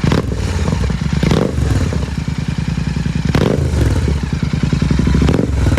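Royal Enfield Continental GT650's 648 cc parallel-twin running loud through an aftermarket Red Rooster exhaust, with a few sharp throttle blips over the idle.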